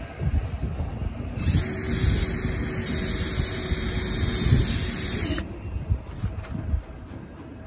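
Cordless drill driving a screw through a boat hatch's mounting flange into the roof, its motor running steadily for about four seconds from about a second and a half in. Wind rumbles on the microphone throughout.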